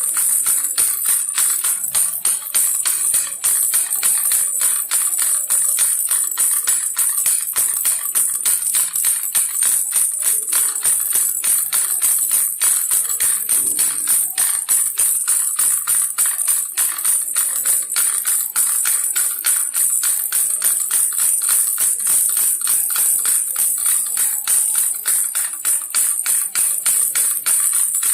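Baby rattle shaken rapidly and without pause: a steady, dense, bright jingling rattle.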